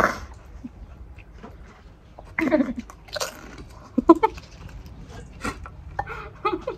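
Chewing and crunching of pani puri, the crisp fried puri shells broken in the mouth, in short scattered bites. A few brief muffled voice sounds come in between.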